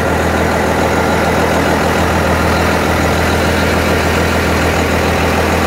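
First-generation Cummins 5.9-litre inline-six diesel idling steadily.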